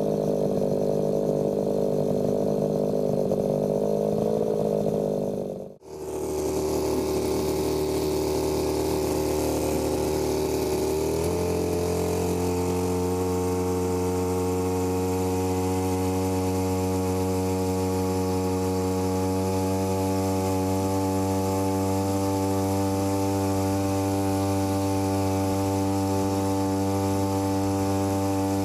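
Small 3 hp outboard motor running steadily under way. The sound breaks briefly about six seconds in, and about five seconds later the engine revs up to a higher pitch and holds there.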